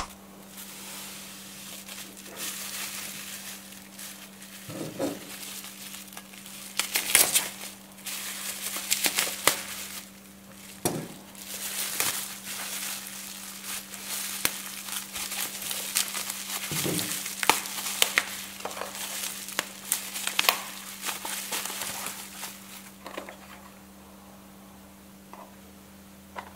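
Plastic bubble wrap crinkling and crackling in irregular bursts as it is handled and peeled off a small box, with a few soft thumps. It dies down near the end, over a steady low hum.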